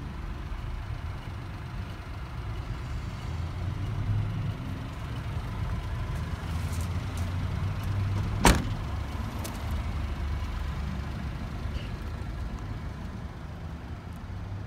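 Honda Acty kei truck's small three-cylinder engine idling steadily, with one sharp door slam a little past halfway.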